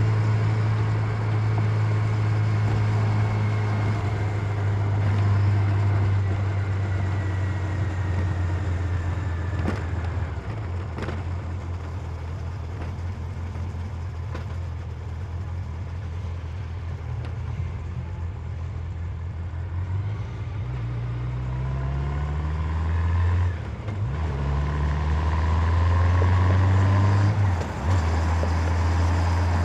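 Honda CB750 Nighthawk's inline-four engine running on the move. It settles lower in the middle, then accelerates with a rising pitch, with two brief dips in the sound near the end as it shifts gears.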